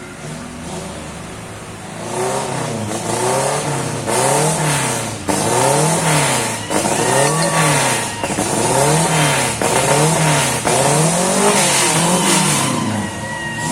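A vehicle engine revving up and down over and over, about once every second and a half, over a steady hiss, as on a rough off-road trail. The revving starts about two seconds in and eases off near the end.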